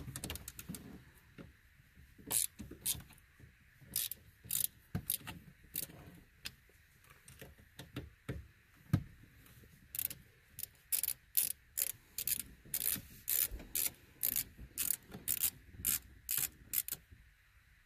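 Hand ratchet with a 7/32 socket clicking as it backs out a screw from the steering column trim. The clicks come in scattered short bursts, then settle into a steady rhythm of about two to three a second in the second half.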